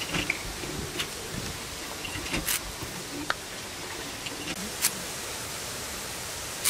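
Drumstick pods being cut by hand against a curved boti blade: a few sharp clicks and snaps at irregular intervals as the blade cuts through the fibrous pod, over a steady hiss.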